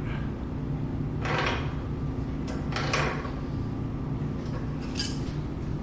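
Steady low machinery hum, with a few short scrapes and metallic clicks as a hand tool refits the priming plug on a dry-pipe sprinkler valve after water has been poured in.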